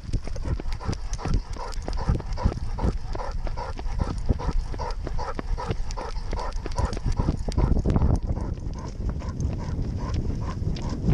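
A weimaraner running at a steady gait: rhythmic paw strikes about three a second, with the jolting and low rumble of a camera carried on the running dog.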